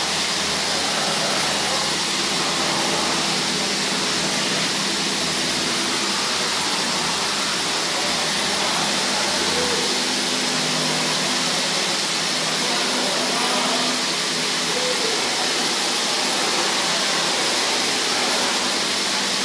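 Handheld gas torch burning with a steady hiss as its blue flame is swept over car paint, laying down a thin silica coating.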